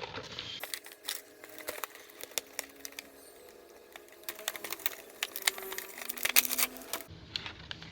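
A toy's cardboard box and plastic packaging being opened and handled by hand: a busy run of sharp clicks, taps and crinkles.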